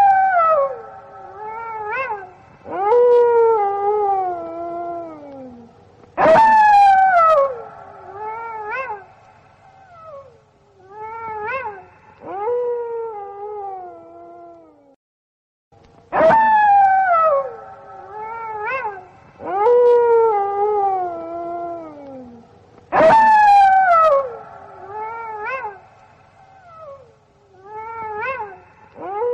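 Several wolves howling in chorus: long, overlapping howls that slide down in pitch, coming in bouts that start suddenly, with a brief pause about halfway through.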